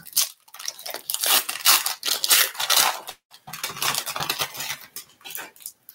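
A Pokémon booster pack's foil wrapper crinkling and tearing as it is opened by hand, in irregular bursts with a short pause about three seconds in.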